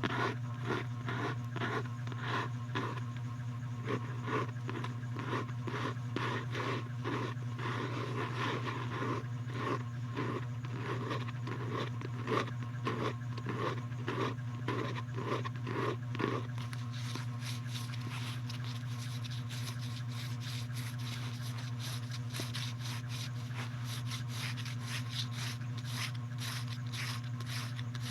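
Repeated scraping strokes, about two a second, which turn fainter and higher about halfway through, over a steady low hum.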